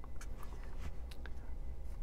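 Sharpie marker writing on paper: a few faint short strokes in the first second and a half, over a low steady hum.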